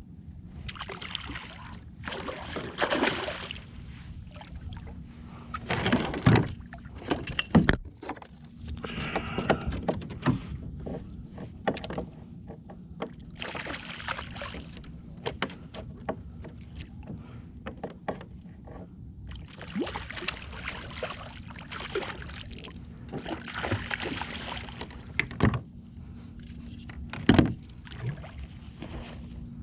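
Water washing against a fishing kayak's hull at sea, in swishing surges every four to six seconds over a steady low rumble, with scattered knocks of gear against the kayak.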